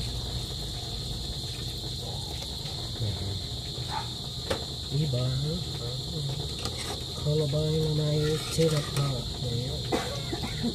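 Steady high-pitched insect trilling, like crickets, throughout. A metal ladle clinks a few times against an aluminium pot as the stew is stirred, and a low wavering hum comes twice in the middle.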